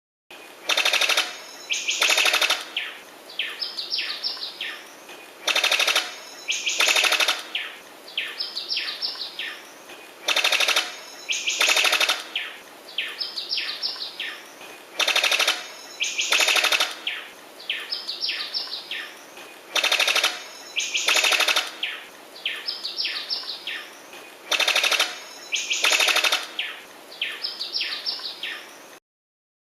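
Sickle-billed bird of paradise calling: two loud rattling bursts about a second and a half apart, then a quicker run of shorter notes. The phrase repeats about every five seconds, six times over, and the sound stops abruptly near the end.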